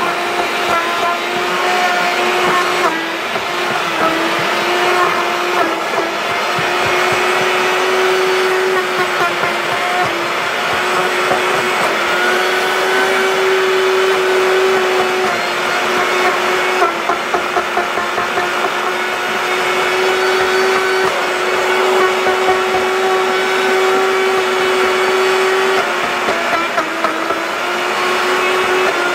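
Sinbo Super Blender SPB-1 crushing a jar full of ice: a steady, loud high motor whine with ice clattering against the blades, the pitch sagging briefly a few times.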